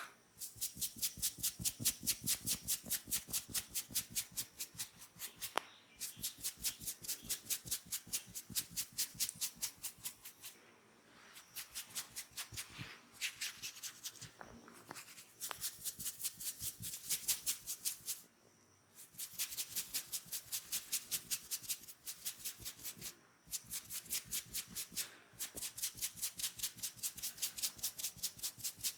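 A masseur's hands working rhythmically over skin in quick massage strokes, about three or four a second. The strokes come in runs broken by short pauses.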